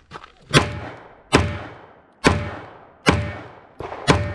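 Five pistol shots fired about a second apart during a timed IDPA stage, each trailing off in a short echo.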